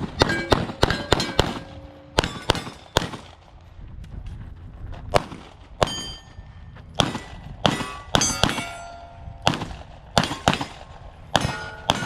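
Pistol fired in quick strings at steel targets, the plates clanging and ringing on each hit; about twenty sharp reports and strikes in uneven runs, with a lull a few seconds in.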